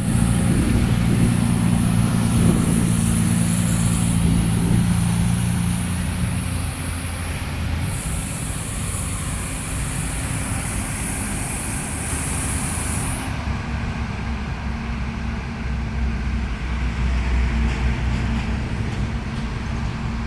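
Caterpillar 320D excavator's six-cylinder diesel engine running, its hum stronger for the first six seconds and then easing to a lower, steadier level.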